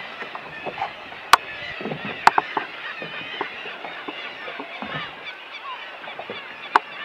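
Seabird colony calling: a dense, steady chatter of many short overlapping calls. Three sharp clicks stand out, about a second in, about two seconds in and near the end.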